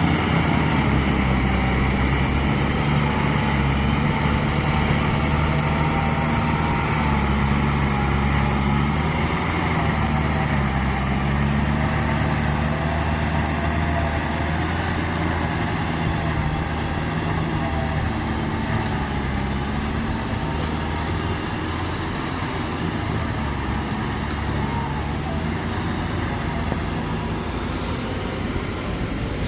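Engine of a Kubota paddy-field plowing machine running steadily under load, its pitch wavering slightly.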